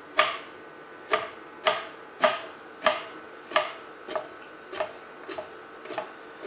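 Kitchen knife chopping down through a whole carp's skin onto a plastic cutting board in quick, even knocks, about two a second, as the fish's back is scored with close-set cuts. The knocks grow a little softer after about four seconds.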